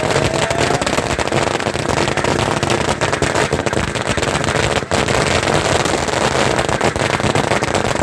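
Firecrackers going off in a loud, rapid, continuous crackle of bangs.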